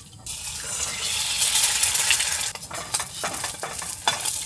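Food sizzling in a hot frying pan, the hiss starting suddenly just after the start as it goes into the pan, with a few clicks of a utensil against the pan.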